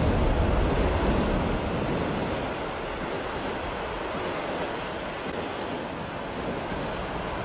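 A loud rushing roar of noise from a meteor explosion slowly dies away, with no pitch to it, like wind or surf. It cuts off suddenly at the end.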